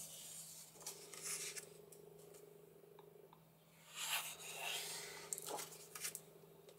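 Book pages being turned by hand: paper rustling twice, about a second in and again around four to five seconds in, over a faint steady hum.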